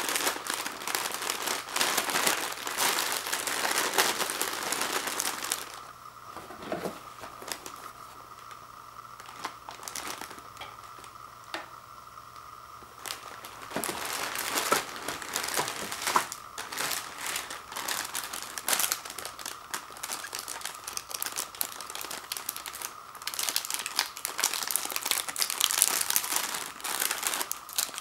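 Plastic film sleeves of Ritz crackers crinkling as they are handled, with a quieter stretch of several seconds about a quarter of the way in. Near the end the crinkling gets louder as the end of one sleeve is picked at to open it.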